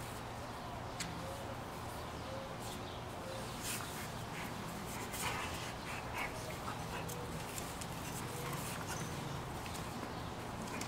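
Two pit bull mix dogs play-wrestling on concrete: irregular scuffling, short clicks and snorts of breath as they grapple, with a few faint brief whimpers, over a steady low hum.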